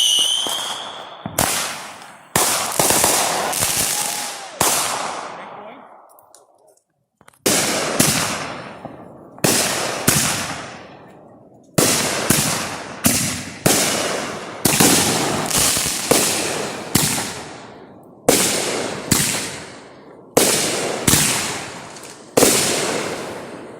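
Fireworks going off in a rapid series: about two dozen sharp bangs, each trailing off in a long echoing rumble, with a short pause about six seconds in.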